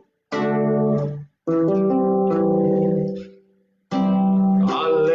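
Acoustic guitar strumming chords in short phrases with brief pauses between them. The chords ring out as the song's introduction begins.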